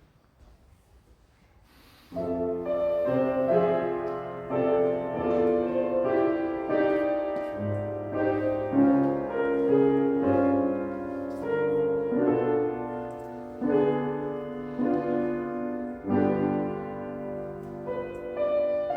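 Solo piano playing a slow piece with sustained chords under a melody, starting about two seconds in after a brief near-silence.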